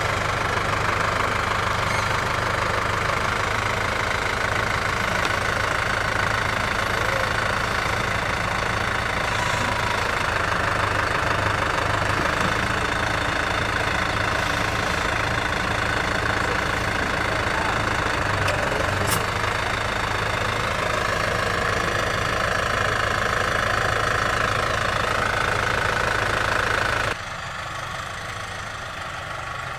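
Engine of the machine working the tree transplanter, running steadily. Its sound drops suddenly in level a few seconds before the end.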